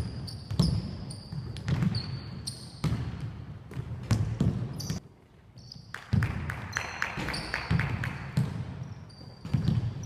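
Basketballs bouncing on a hardwood court with sneakers squeaking, echoing in a large sports hall. Bounces come irregularly throughout, with a quick run of bounces near the middle.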